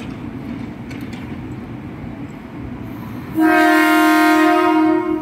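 Horn of a Tokyo Metro 6000-series KRL electric commuter train, one long steady blast lasting about a second and a half, starting a little after the middle: the train signalling before it leaves the platform. Before the blast there is only a steady low hum.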